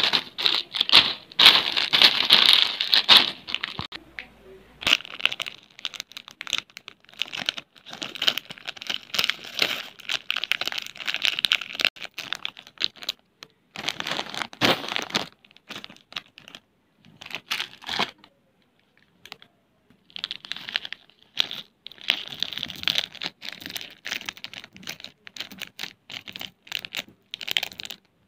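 Choco 4 candy packets of metallised plastic crinkling and tearing as they are handled and opened. The crinkling comes in bursts with short pauses and a few sharp clicks.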